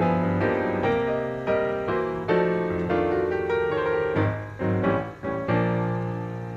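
Background piano music: gentle notes and chords struck one after another, slowing and settling on a held chord near the end.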